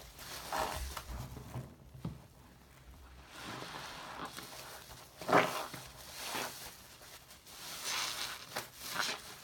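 Yellow sponge loaded with shaving-cream lather being squeezed and wrung by hand over a sink of soapy water: wet squishing of foam and water in several irregular swells, the loudest about five seconds in.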